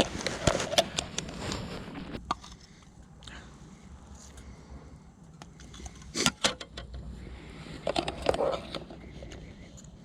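Metal cookware and utensils clinking and clattering while eating from a camp mess kit, in a few short bursts: near the start, about six seconds in and about eight seconds in.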